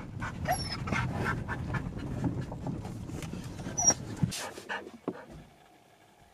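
Husky-type dog panting quickly and evenly, with a couple of brief high whines, until the panting stops about four seconds in.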